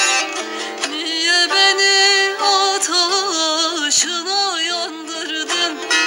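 Turkish folk music: a continuous instrumental passage with a wavering, heavily ornamented melody over held notes.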